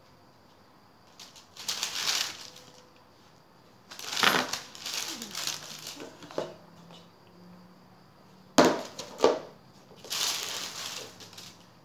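Baking paper rustling and crinkling in several short bursts as it is handled, with two sharper crackles about nine seconds in.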